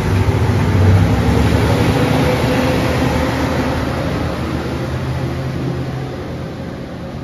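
JR Shikoku 2700 series diesel limited-express railcar pulling away, its diesel engines running with a steady hum. The sound is loudest about a second in and fades as the train moves off.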